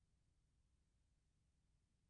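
Near silence: only a faint, steady low noise floor.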